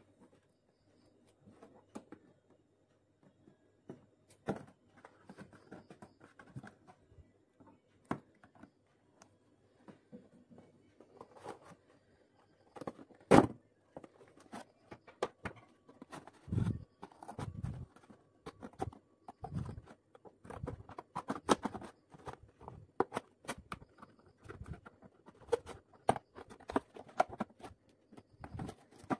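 A thin cardboard box being handled and cut with a knife and then scissors: scattered light taps and rustles, one sharp knock about halfway, then a quicker run of crisp cutting clicks toward the end.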